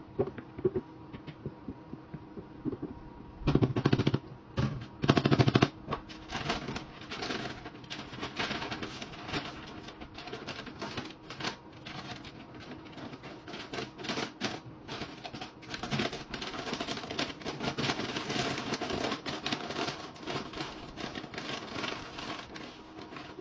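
Brown kraft paper crinkling and rustling as it is folded and crumpled around a heap of food, with two louder bursts of crackling a few seconds in.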